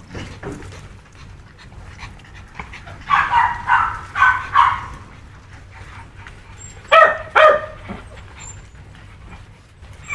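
Puppies yipping and whining: a run of short high calls from about three to five seconds in, then two loud yelps about seven seconds in, over a steady low hum.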